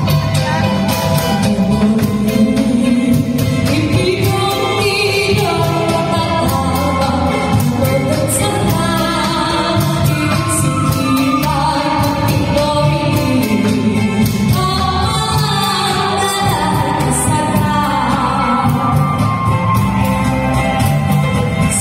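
Live band with keyboard accompanying a singer through a song, the voice carrying a flowing melody over a steady beat.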